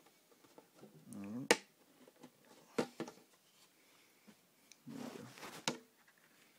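Tank being opened and handled: a few sharp clicks and knocks, the loudest about a second and a half in, with two short scraping or rustling stretches between them.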